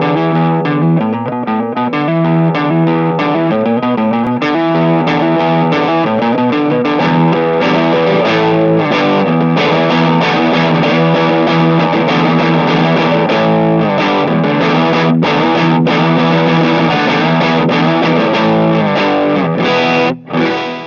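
Electric guitar, a 1979 Gibson Les Paul Deluxe, played through a Stone Deaf Trashy Blonde distortion pedal: a loud run of overdriven riffs and chords, with brief stops about 15 and 20 seconds in.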